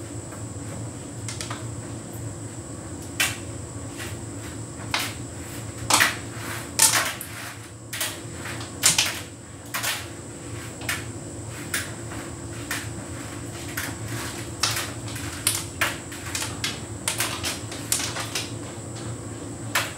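Hotpoint heat pump tumble dryer running on a synthetics cycle: a steady low hum with irregular clicks and knocks as the load tumbles in the drum.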